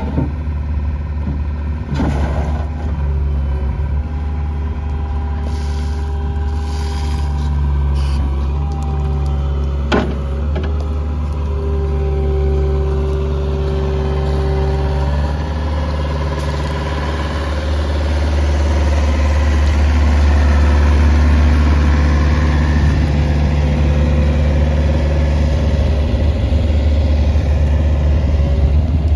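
Hitachi ZX55U-5A mini excavator's diesel engine idling steadily, growing a little louder in the second half, with two brief sharp knocks.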